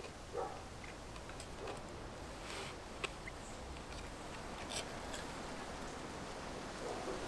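Light clicks and scrapes of a metal spoon in a frying pan and against a wooden plate as food is served, scattered over a faint steady background.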